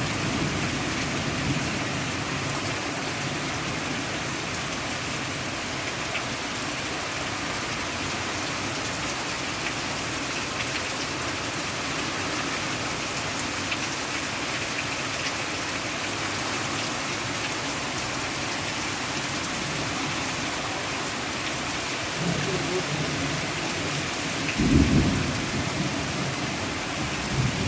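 Heavy rain pouring down steadily in a summer downpour. A short, loud, low thump comes near the end, with a fainter low sound a few seconds before it.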